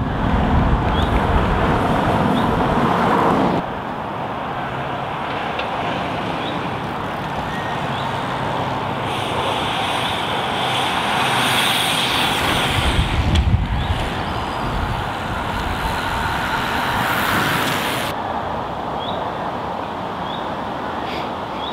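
Road traffic noise: vehicles passing on an open road as groups of road cyclists ride by, a steady rushing sound that changes abruptly a few times, with a brief low rumble about halfway through.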